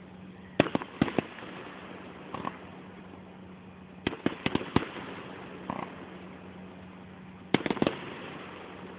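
Aerial fireworks bursting: sharp bangs in irregular clusters of two to five, with single quieter pops between them. The loudest bangs come about half a second in and again near the end.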